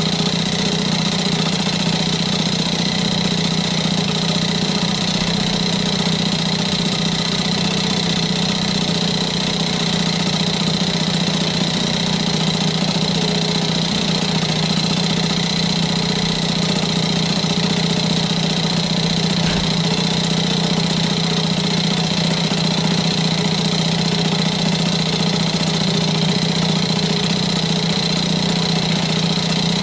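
Small 3.5 hp two-stroke outboard motor running steadily at a low idle in a test tub, its propeller churning the water.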